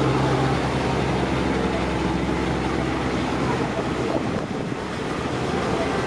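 Thai diesel railcar train passing close by, its engine giving a steady low drone that eases about four seconds in as the cars roll past.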